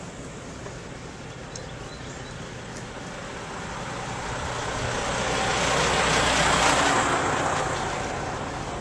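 Road traffic noise from a tractor-trailer and cars in the next lane: a steady rush that swells to its loudest about six to seven seconds in as the truck is passed close by, then eases off.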